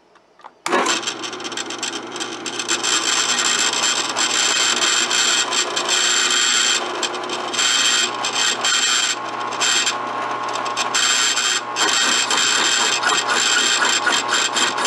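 Drill press running a homemade flat-ground cutter that scrapes metal from the squish band of a two-stroke cylinder head. It starts about a second in: a steady motor hum under a harsh, continuous scraping that drops briefly several times.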